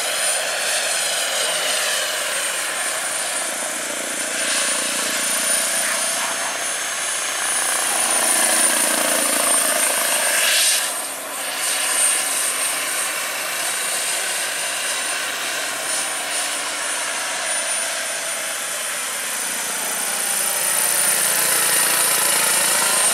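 Turbine-powered radio-controlled scale Bell 206B JetRanger III helicopter in flight: a steady high turbine whine over the rotor and engine noise. The pitch drifts up and down as the model moves around the sky, and the sound dips briefly about halfway through.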